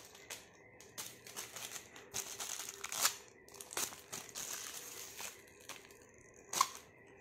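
A thin clear plastic bag being crinkled and crumpled in a baby's hands: irregular rustling crackles, with sharper crinkles about three seconds in and again shortly before the end.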